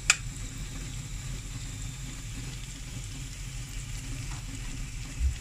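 Chopped onion and ground tomato sizzling steadily in hot oil in a stainless steel kadai, a tomato chutney tempering with curry leaves. There is a sharp tap just at the start and a short low thump near the end.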